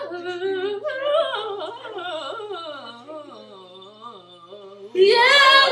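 A high voice singing without words, its pitch wavering and sliding downward as it fades, then breaking into a sudden louder, higher note near the end.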